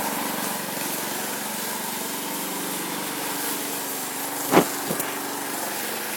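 Small lawn mower engine running steadily in the background. A brief sharp sound cuts through about four and a half seconds in.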